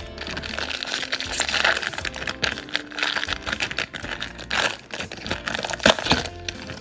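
Foil wrapper of a Topps jumbo trading-card pack crinkling and tearing as it is ripped open and peeled back by hand, with a sharp crackle about six seconds in.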